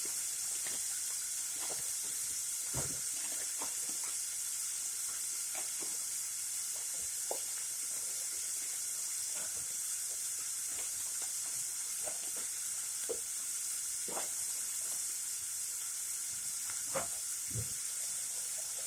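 Chopped onion sizzling in hot oil in a pan, a steady frying hiss, softening toward translucent. A few short soft knocks are heard now and then over the sizzle.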